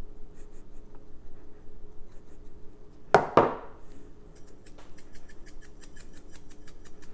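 Glass spice shaker knocked twice on the countertop about three seconds in, then shaken quickly over a bowl of corn: a fast, even rattle of about five or six shakes a second.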